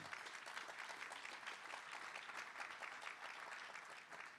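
Audience applauding, a steady patter of many hands that begins to thin out near the end.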